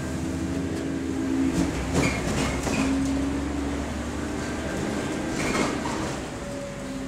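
Inside a moving double-decker bus: a steady drone from the engine and its cooling fan, with a few humming tones that shift in pitch. Two short louder rattling noises come about two seconds in and again about five and a half seconds in.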